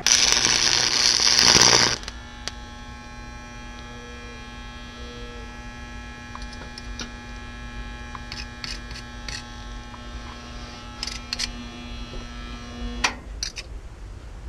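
Electric arc welding on a Harbor Freight welder: the arc crackles loudly for about two seconds, then cuts off. The welder's steady electrical hum follows, with a few faint clicks, and stops near the end.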